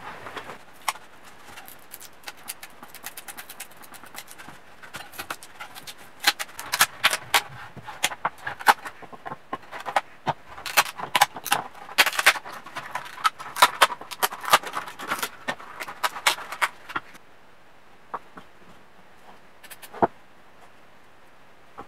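Hollow 3D-printed plastic parts clattering and tapping against each other and the bench as they are handled and set down: a flurry of light clicks and knocks that builds up, busiest in the middle, then stops, with one more knock near the end.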